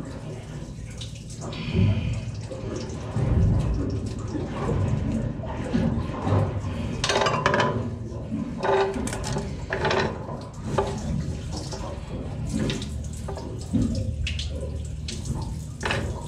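Water trickling and dripping from the deck hose as it is worked off its fitting on the engine's heat exchanger, with irregular knocks and rubbing from the hose and fittings being handled.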